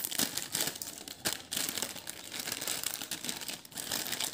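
Foil-lined plastic snack packet crinkling as hands tear a strip off its top and pull it open, an irregular crackle throughout.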